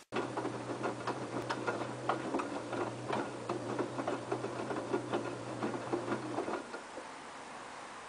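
LG F1222TD front-loading washing machine in its main wash: the direct-drive inverter motor hums as it turns the drum, with a rapid patter of clicks and knocks from the wet laundry tumbling. About six and a half seconds in, the motor hum and tumbling stop as the drum pauses between turns.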